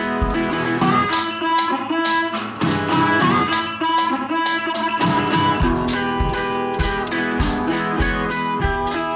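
Background music led by a plucked guitar, with a steady beat and bass notes.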